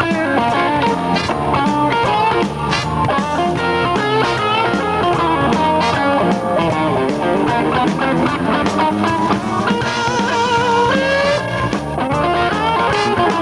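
Tejano band playing live, with a horn section and drums over a steady beat.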